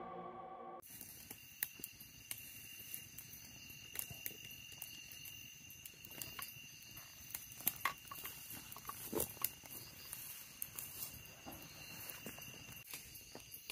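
Small wood campfire crackling, with irregular sharp snaps and pops, over a steady high drone of night insects. The tail of intro music fades out within the first second.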